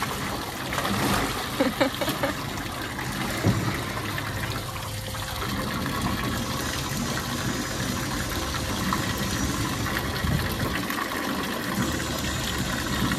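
Water from a hose pouring steadily into a metal tub of water, with a lion splashing as it moves in the tub; a few louder splashes come in the first few seconds.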